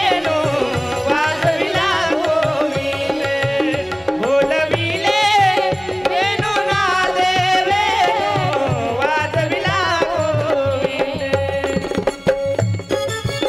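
A woman singing a Marathi kirtan devotional song in a wavering, ornamented melody, over tabla drumming and a steady held drone note. The singing stops near the end while the tabla and drone continue.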